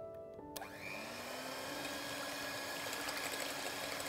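Electric hand mixer switched on about half a second in, its motor spinning up over about a second and then running steadily as its beaters whip egg whites in a glass bowl toward soft peaks.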